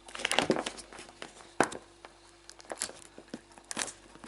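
Ice-cube mold being twisted and pressed to free frozen ice cubes that are stuck fast: scattered sharp cracks, clicks and crinkles.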